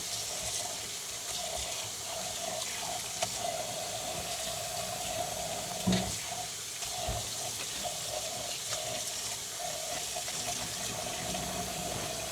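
Cold tap water running steadily over boiled noodles to rinse out the starch so they don't stick. A single short knock about six seconds in.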